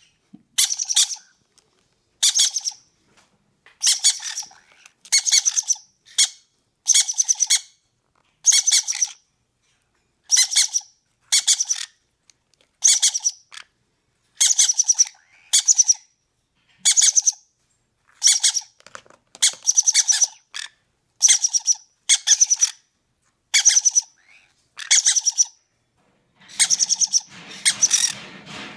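Green-cheeked conure chicks giving raspy begging calls, a short buzzy call about once a second, as they beg to be fed. There is some rustling under the calls near the end.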